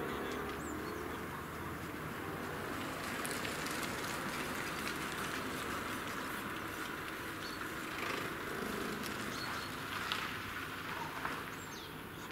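Steady outdoor background noise with short, scattered bird chirps.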